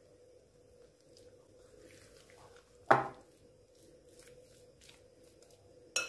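Metal spoon mixing flour-coated raw chicken pieces in a glass bowl: faint scraping and squishing, with a sharp knock of the spoon against the bowl about three seconds in and another near the end.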